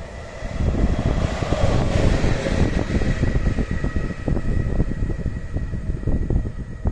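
ET43 electric locomotive running light past, with a steady high whine over a gusty low rumble. The noise swells to its loudest about two seconds in.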